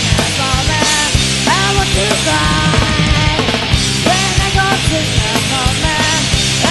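Grunge rock song played by a full band: loud, dense guitars, bass and steady drums, with a melody line sliding up into its notes.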